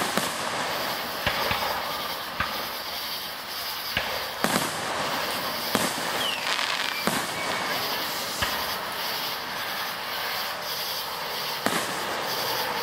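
Aerial firework shells bursting overhead: about nine sharp bangs at irregular intervals, one to two seconds apart, over a steady background noise.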